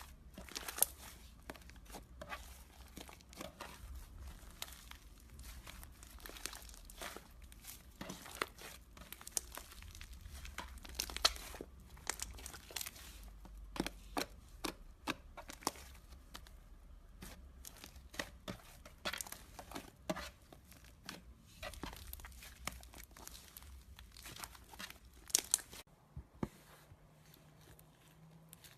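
Foamy slime, slime mixed with shaving foam, being squeezed and stretched by hand, giving many small sticky pops and crackles at an irregular pace. The crackling thins out near the end.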